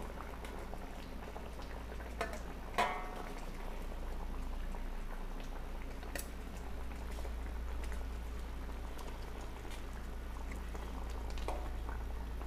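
Thick coconut-milk chili gravy bubbling steadily at the boil in a wok, with a few sharp clicks of metal tongs against the wok and plate, the clearest about three seconds in, as chicken pieces are lifted out.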